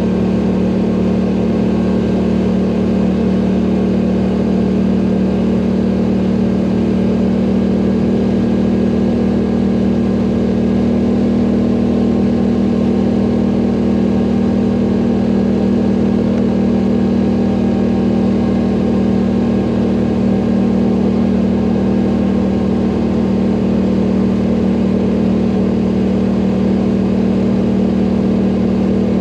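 ATV engine running at a steady speed with a constant, even drone.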